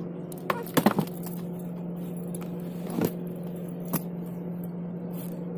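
Steady low hum of a car engine idling, with a few short knocks and clatters of bags and items being handled in an SUV's open cargo area; the loudest clatter comes about a second in, with single knocks later on.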